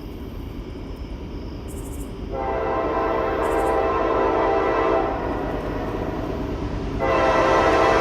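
Freight locomotive's air horn sounding a multi-note chord over the low rumble of the train. The horn starts about two seconds in, dips a little, then comes back louder near the end.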